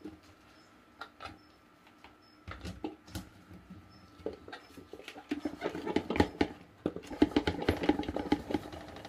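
Small peeled onions being placed into a jar by hand, a few light knocks at first. From about five seconds in the onions are pressed down and give off a dense run of squeaks and creaks as they rub against each other and the jar.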